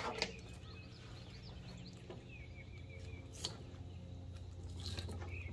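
Faint birds chirping over a low steady hum, with a few sharp clicks near the start and again about three and a half seconds in.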